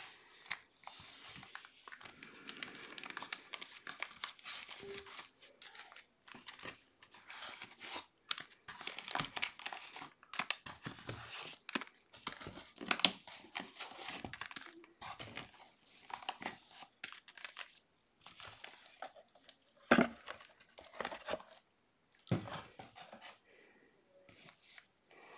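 Wax-paper trading-card packs from a 1981 Topps Football box crinkling and rustling as they are handled, lifted out of the box and stacked, with a couple of soft knocks near the end as packs are set down on the table.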